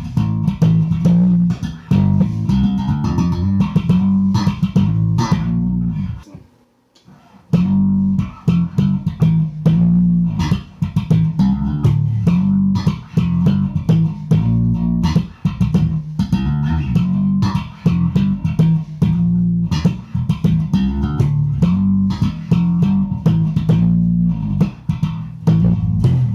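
Five-string Harley Benton MM 85-A SB Deluxe electric bass played slap style, a rhythmic line of sharply struck notes. It stops for about a second around six seconds in, then picks up again.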